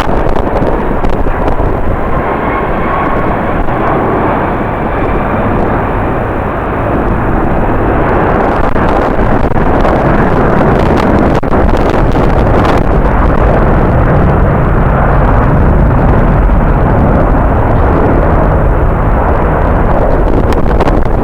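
Jet airliner engine noise, a loud steady rush with a faint whine in the first few seconds, mixed with strong wind buffeting the microphone.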